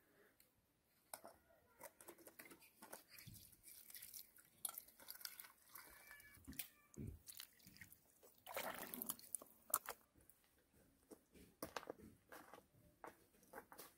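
Faint outdoor washing-up sounds: water poured from a plastic watering can splashing over a small bowl and hands, with scattered light clicks and scrapes of dishes being handled, then a few footsteps.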